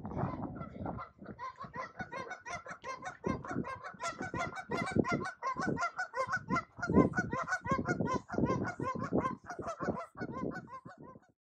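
Geese honking: a rapid run of short, repeated honks, several a second, that cuts off abruptly shortly before the end.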